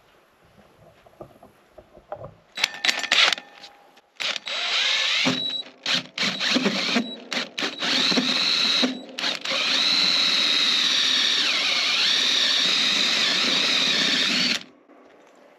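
DeWalt cordless drill turning a 4.5-inch hole saw on a pilot bit, cutting through the 1/4-inch plastic wall of a water tank. It starts in short bursts about two and a half seconds in, then runs steadily with a whine from about ten seconds, dips in pitch briefly as it bogs under load, and cuts off suddenly near the end as the saw breaks through.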